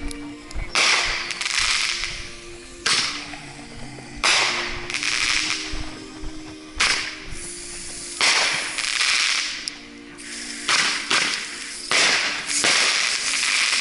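Fireworks going off one after another: about a dozen sharp reports, each followed by a hissing crackle that fades within a second.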